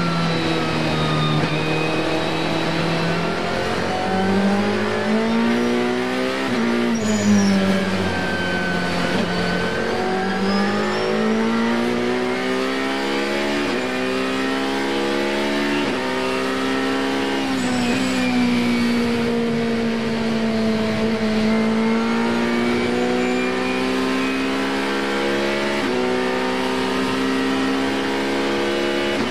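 Ferrari 458 GT2 race car's V8 engine heard from inside the cockpit, at full race pace: its pitch climbs and falls steadily, with sudden steps at the quick gear changes.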